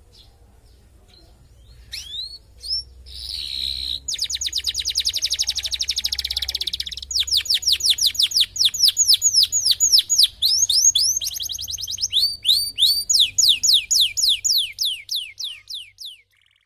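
Domestic canary singing: after a quiet start come a few chirps and a short buzzy trill, then long, fast runs of repeated falling notes, about ten a second, which stop shortly before the end.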